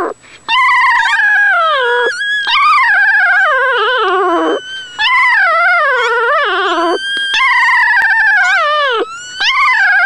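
Newborn puppy crying in long, wavering calls that slide down in pitch, about five in a row with short breaks. These are the squeals of a pup that has not yet latched on to suckle.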